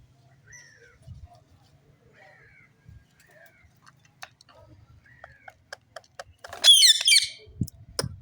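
Pet parrot giving soft short chirps, then a loud harsh squawk about seven seconds in, with a run of sharp clicks around it.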